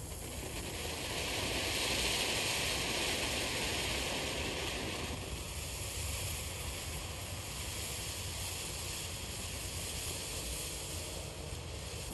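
Shogun USA Fountain ground firework burning with a steady hiss of spraying sparks. The hiss is strongest in the first few seconds, then settles a little lower.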